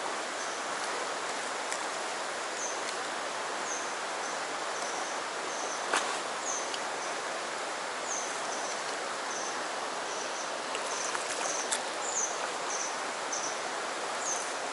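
Mountain stream rushing steadily over rocks, with short high chirps repeating about once or twice a second and a single sharp click about six seconds in.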